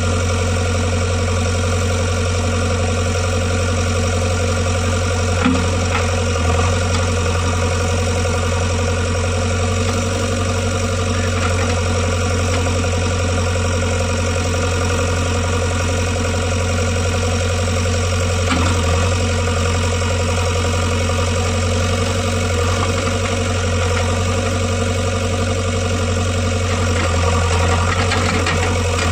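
JCB 3DX backhoe loader's diesel engine running steadily, with a low hum, and a few brief knocks about five and eighteen seconds in.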